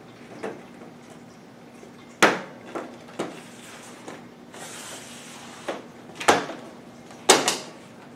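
Plastic accordion side panel of a window air conditioner being worked into the unit's side track: a series of sharp plastic clacks and knocks, the loudest about two seconds in and near the end, with a brief scraping slide in the middle.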